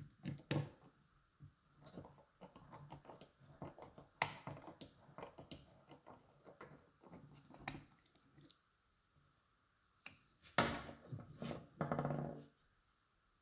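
Small precision screwdriver working the screws of a plastic pocket spirit level: irregular light clicks and scrapes of the bit in the screw heads and of the housing being handled. Near the end come two louder, longer handling sounds with a low buzzy tone as the level is moved on the wooden board.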